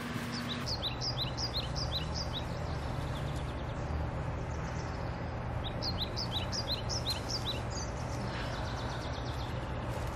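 A songbird singing two quick runs of short, high, downward-slurred chirps, the first in the opening couple of seconds and the second about six seconds in, over a steady low hum.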